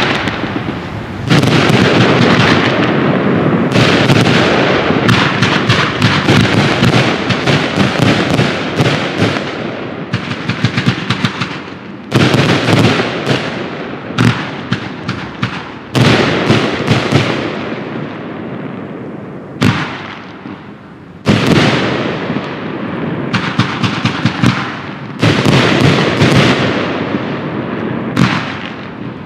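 Riakeo "Wollust" compound firework cake (102 shots of 25 mm calibre) firing in a continuous barrage of launches and bursts, with rapid crackling after the bursts. Fresh loud volleys start abruptly every two to four seconds, each tailing off in crackle before the next.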